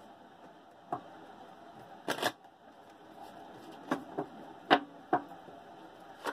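Tarot cards being shuffled in the hands: a handful of short, separate clacks and flutters of the deck, with quiet between them.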